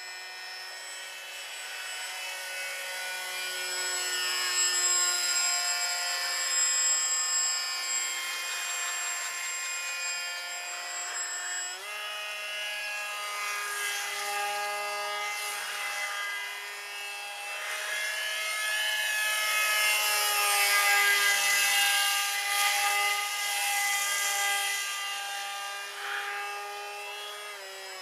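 Electric motor and propeller of an RCPowers F-22 foam model jet in flight, giving a steady whine. The pitch steps up about halfway through as the throttle is opened. The sound grows louder and gains a rushing hiss about two-thirds of the way through.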